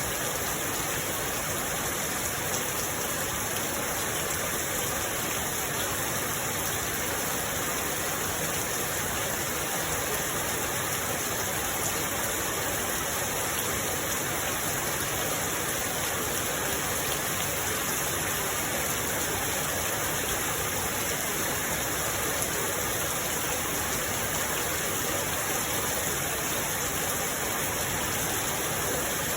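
Steady heavy rain falling, an even unbroken hiss with no distinct drops or pauses.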